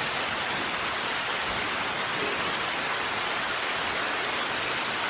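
A steady, even hiss of background noise, rain-like, with no speech and no change in level.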